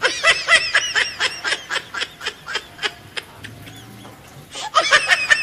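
High-pitched giggling laughter in quick repeated bursts, strongest in the first second and again near the end, over sharp crackling pops from food frying in oil in a pan.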